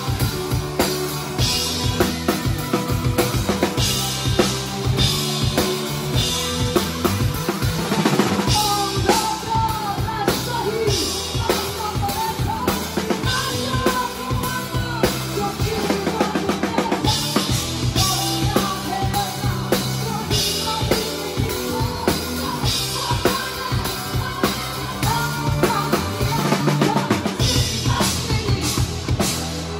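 Drum kit played in a live rock band, heard close up: bass drum, snare and cymbal strikes loudest over the band's other instruments, with a wavering melodic line coming in over it at times.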